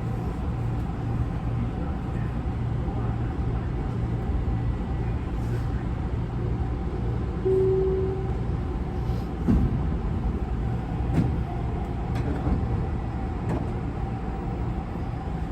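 Interior sound of a Tobu 50090 series commuter train car: a steady low hum and drone with a held mid-pitched tone. A short beep sounds about seven and a half seconds in, and a few sharp knocks follow in the second half.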